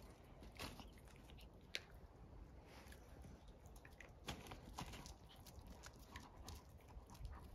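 Faint scuffling and scattered short taps of a puppy and a cat play-wrestling on concrete.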